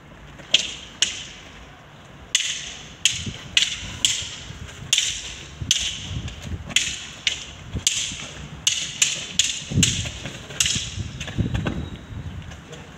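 Long wooden sticks clacking against each other in stick-fighting sparring: about twenty sharp strikes at an uneven pace, some in quick pairs. A few dull thuds come in about ten seconds in.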